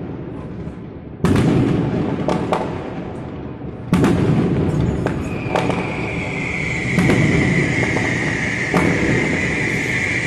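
Aerial fireworks going off: several loud bangs, each trailing a long echo, over a continuous crackle. A steady high hiss joins about halfway through.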